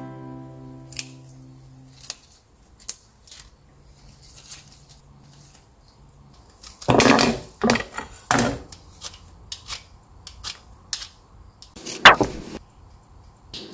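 Kangkong (water spinach) stems being snapped and the leaves plucked by hand on a wooden cutting board: scattered sharp snaps, with a louder cluster of rustling and snapping about seven seconds in and a sharp knock on the board near the end.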